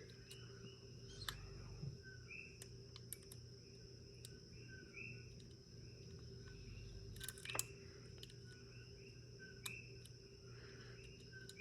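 Faint clicks and scrapes of a hook pick and tension wrench working the pins of a Master Lock 410 lockout padlock, a few sharper clicks standing out, over a steady electrical hum.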